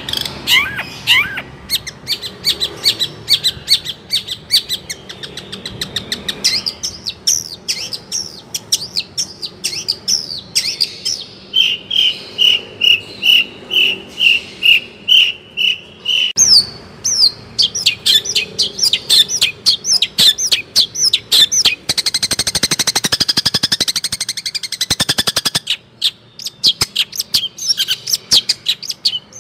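Long-tailed shrike (cendet) singing hard: a continuous, varied stream of rapid chirps and whistled phrases. About twelve seconds in it gives a run of evenly spaced clear notes, about two a second. About twenty-two seconds in it breaks into a fast, buzzy trill.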